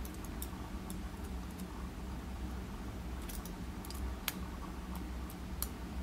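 A handful of light, irregularly spaced ticks as metal tweezers pick up and set small brass lock pins into the holes of a pinning tray, the sharpest about four seconds in.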